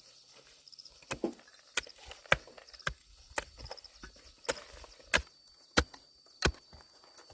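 About ten sharp knocks of a hand tool striking, spaced roughly half a second to a second apart, over a faint high insect chirping that turns steady about five seconds in.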